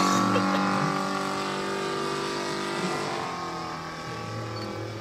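Multi-cylinder engine of a large radio-controlled Salmson 2A2 scale biplane in flight, a steady drone that fades gradually as the plane flies away.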